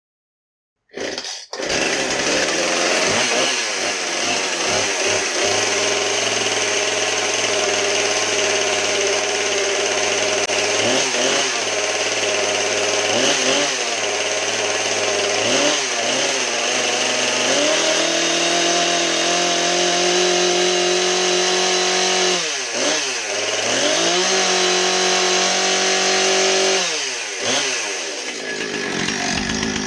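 Husqvarna 460 two-stroke chainsaw starting up about a second in and running. At first it idles with several short throttle blips. Later it is held at higher revs twice, dropping back briefly between them and again near the end.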